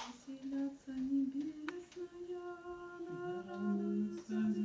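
A small choir of a few voices rehearsing Orthodox liturgical chant a cappella, holding long, steady notes. A second, lower voice joins about three seconds in.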